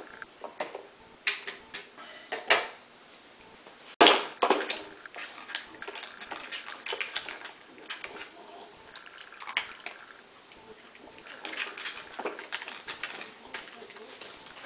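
Dog nosing and pawing at a hard plastic Dog Casino treat-puzzle toy, its drawers and pieces clicking and knocking irregularly, with one loud knock about four seconds in.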